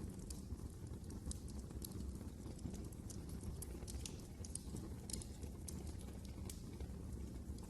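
Fire crackling in a fireplace: irregular sharp snaps and pops over a steady low rumble of the flames.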